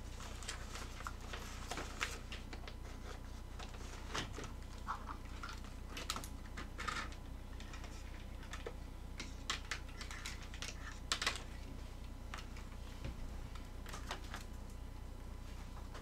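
Scattered light clicks and taps, irregular and a few at a time, over a steady low electrical hum.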